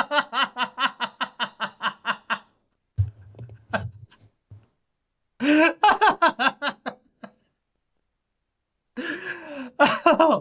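Laughter in three bouts: a long run of quick, even ha-ha pulses over the first two seconds or so, then shorter bouts about halfway through and near the end.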